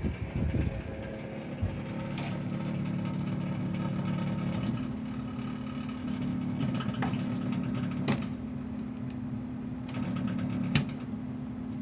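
Panasonic 2J45FHA2 compressor running at low speed with a steady hum and a rattle, the sign of something loose inside it. A few sharp clicks stand out, the loudest near the end.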